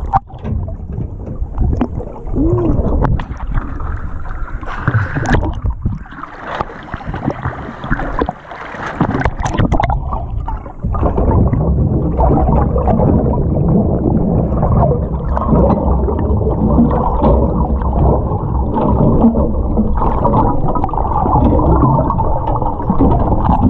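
Muffled water sloshing and bubbling against an underwater camera at the surface of the sea, with scattered clicks and knocks; it turns steadier and denser about eleven seconds in.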